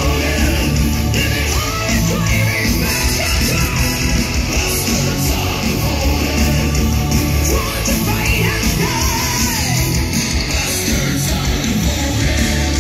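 Heavy metal band playing live through a large outdoor festival PA, heard from out in the audience: loud, continuous band music with singing.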